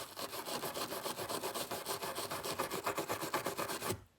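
Rapid, even back-and-forth scrubbing on the glass breaker of a Medford Praetorian G knife, the part that serves as its frame bushing, to clean off built-up grime; the strokes stop abruptly near the end.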